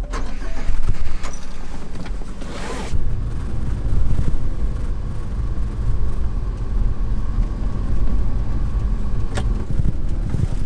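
Subaru Sambar kei truck driving, its small engine and road rumble heard from inside the cab as a steady low drone, with a short hiss about two and a half seconds in and a click near the end.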